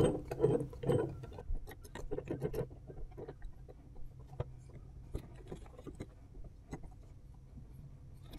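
Irregular small metallic clicks and taps as the jaws and screw of a three-jaw gear puller are handled and set over a spindle's fan wheel, over a faint steady low hum.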